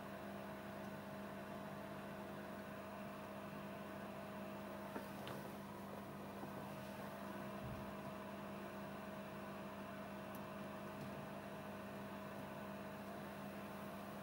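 Faint steady electrical hum from powered bench electronics, with a light click about five seconds in and a brief low thump a few seconds later.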